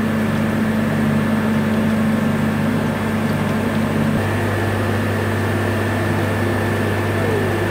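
Steady hum of industrial plant machinery: a low drone with a faint high whine above it. The drone grows a little louder about halfway through.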